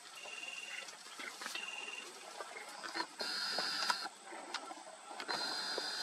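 Small birds bathing in a shallow forest stream, with light splashes and flutters in the water. Over them run two short high trills in the first two seconds and two longer, even, high buzzing calls, one about halfway and one near the end.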